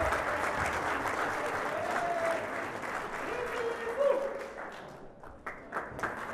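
Audience applauding a stage performance with dense, steady clapping. The clapping thins about five seconds in, then picks up again.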